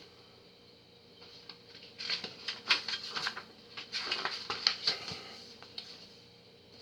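Paper and packaging being handled: crinkly rustling and light clicks in two bursts, about two and four seconds in, as pages of photos are turned and shown.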